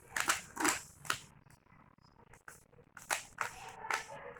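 Plastic Rubik's Cube being turned quickly by hand, its layers clicking and clacking in short runs of turns, with a pause between two flurries.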